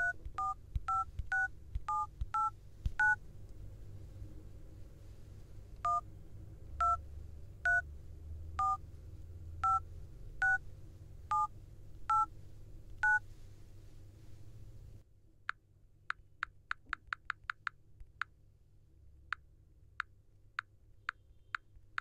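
Smartphone dialer keypad sounding a DTMF two-tone beep for each key pressed, first a quick run of key presses, then a slower one with about a second between beeps. About fifteen seconds in, the beeps give way to very short keypad clicks, rapid at first and then spaced out.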